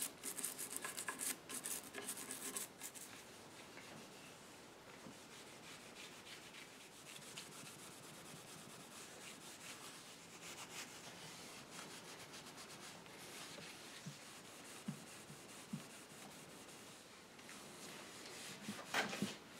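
Cloth rubbing and wiping over the finished wood of a mahogany chair, in quick strokes that are louder for the first few seconds and then faint.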